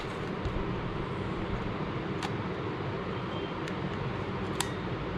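Canon EF-M 15-45 mm kit lens being twisted onto the bayonet mount of a Canon EOS M50 Mark II body: a few faint small clicks, the last as the lens locks into place, over steady background noise.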